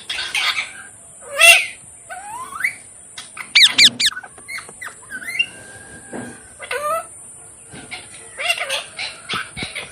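Pet parrot calling: a run of short rising squawks and chirps, a quick burst of sweeping whistles about three and a half seconds in, and a held whistle a little later.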